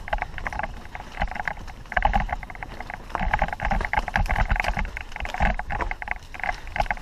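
Mountain bike ridden over a dirt trail, rattling and ticking in quick, irregular clicks over a low rumble, picked up by a helmet-mounted camera.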